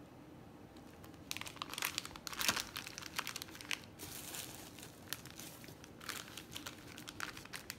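Clear cellophane bags of wax melts and tissue paper crinkling as they are handled and set down, in irregular rustles that are busiest and loudest in the first half, then thin out into scattered crackles.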